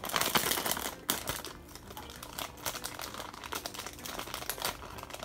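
Plastic ice cream bar wrapper being torn open and crinkled by hand: a dense crackle, loudest in the first second or so, then lighter crinkling.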